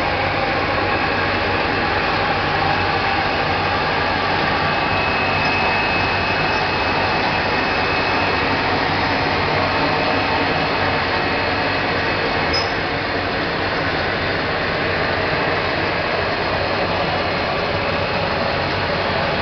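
Ice lolly filling and sealing machine running with a loud, steady mechanical noise, no pauses or beats.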